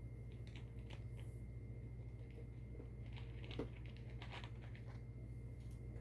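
Quiet room tone with a steady low hum, and a scatter of faint small clicks and ticks that gather about three to four and a half seconds in.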